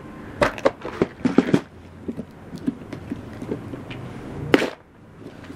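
Clear plastic tackle boxes being handled: a series of plastic clicks and knocks as a box is closed and another is picked up, with one louder knock near the end.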